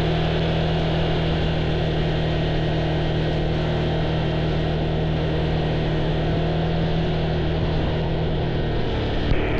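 A vehicle engine running at a steady speed, a constant low drone with an even hiss over it.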